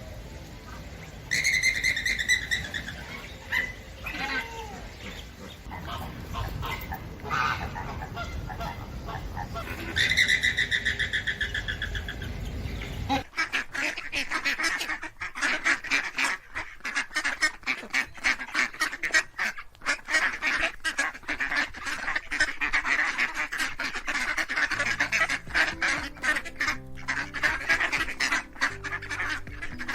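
Waterfowl, ducks and geese, calling: a few separate long calls in the first part, then from about thirteen seconds in the dense, unbroken chatter of a flock.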